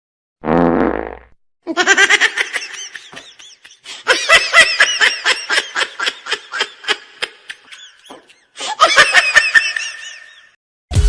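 A short fake fart noise lasting under a second, followed by long loud laughter in rapid bursts that pauses briefly and starts again before stopping.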